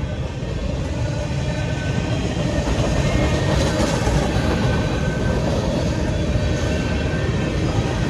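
Freight cars of a CSX mixed freight train (boxcars, covered hopper, tank cars) rolling through a grade crossing: a steady rumble of steel wheels on rail that builds up just as it begins and stays loud.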